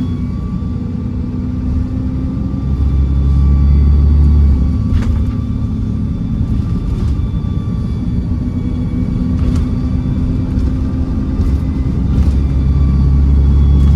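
Dennis Trident / Enviro400 double-decker bus's diesel engine pulling on the move, heard from inside the bus: a heavy low drone that eases about five seconds in and builds again near the end, over a steady high turbo whistle. A few sharp rattles or knocks from the body break through now and then.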